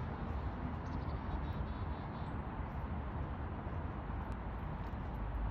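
Wind buffeting the microphone: a steady low rumble with a constant hiss above it.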